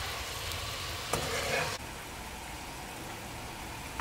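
Sugar syrup boiling in a pot on a gas stove: a steady bubbling hiss. A brief louder noise about a second in stops abruptly just before the two-second mark.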